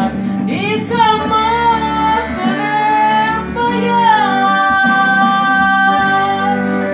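A song: a voice sings long drawn-out notes without words over guitar, gliding between pitches and ending on one long held note.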